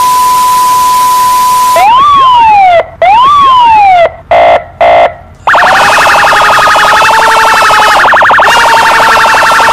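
Edited-in meme sound effects, very loud. A steady high TV test-pattern beep over static hiss comes first. About two seconds in it gives way to two siren-like whoops that rise and fall, then two short buzzes. From about halfway through, a rapidly pulsing buzz runs on.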